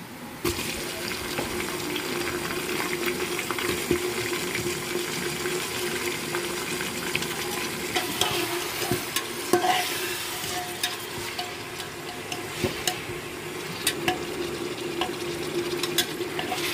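Raw mutton pieces hitting hot oil in a steel pressure cooker and frying with a sizzle that starts suddenly about half a second in, while a steel slotted spoon stirs and clicks against the pot. A steady hum runs underneath.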